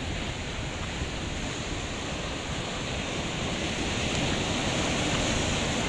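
Sea surf surging and rushing through a narrow rocky gully, a steady wash that swells a little louder over the second half.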